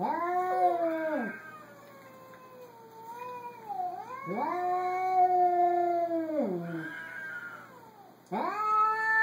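Domestic cat yowling at another cat: long drawn-out calls that slide up and then slowly sink in pitch, with a quieter wavering moan between the first two and another yowl starting near the end. Typical of a territorial stand-off with a strange cat.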